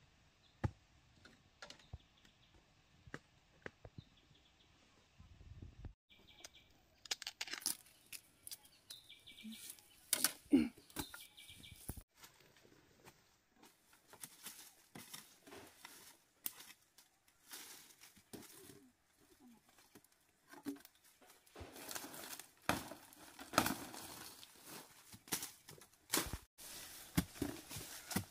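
Rustling and crackling of leaves and brush, with irregular snaps and knocks.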